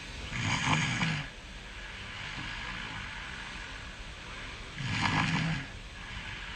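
A person snoring in their sleep: two loud snores about four and a half seconds apart, each lasting about a second, with quieter breathing between them.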